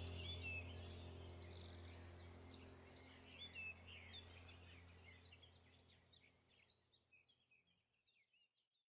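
Birdsong, many short chirps and twitters, over a low steady drone, the whole fading out gradually to silence near the end.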